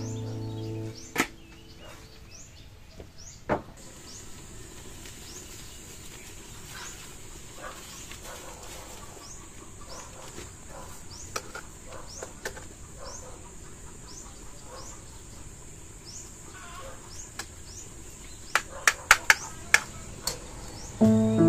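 Outdoor ambience of birds chirping over and over, with a steady high insect drone. A couple of sharp knocks come about a second in and again at about three and a half seconds, and a quick run of sharp clicks near the end as a metal spatula works the wok of caramelising bananas.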